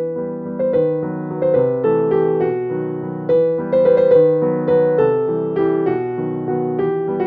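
Background piano music: a gentle melody of struck notes, a new note about every half second.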